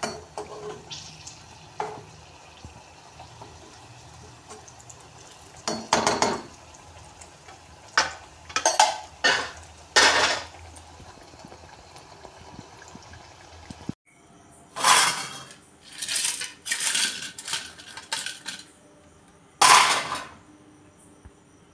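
A metal slotted spoon scraping and clinking against a kadai in a series of strokes, over a faint steady hiss of snake gourd pakoda deep-frying in oil. The hiss stops suddenly about two-thirds of the way through, and the last few strokes come on their own.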